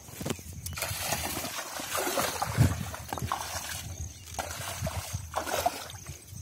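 Water buffaloes shifting about in a muddy wallow: muddy water sloshing and splashing in uneven bursts, with a few low thuds.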